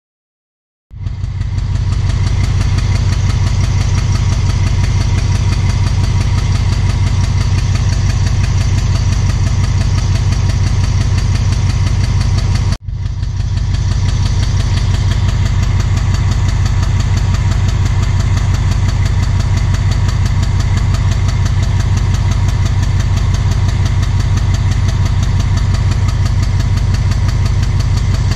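Alsthom diesel-electric locomotive engine running loudly and steadily with a deep, fast, even throb. The uploader calls the sound strange; it comes with heavy black exhaust smoke, cause unknown. It starts about a second in and breaks off for an instant about halfway through.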